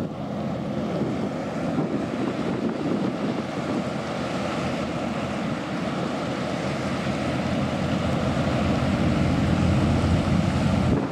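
High-speed passenger ferry running past at speed: a steady rushing of its engines and wash, mixed with waves breaking on shore rocks and wind buffeting the microphone, growing somewhat louder over the last few seconds as the ferry comes closest.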